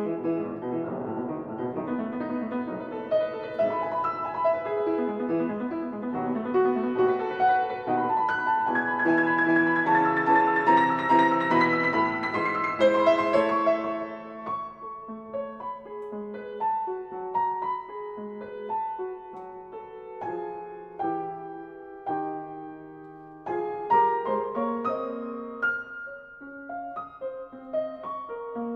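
Soft solo piano music: background music over the repair footage, fuller and louder in the first half, thinning to sparser notes after about halfway.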